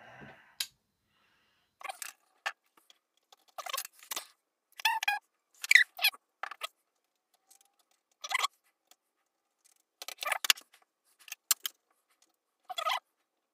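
Scattered short clicks, rattles and squeaks of hand tools and small parts being picked up and handled on a workbench, about a dozen separate sounds with silence between them.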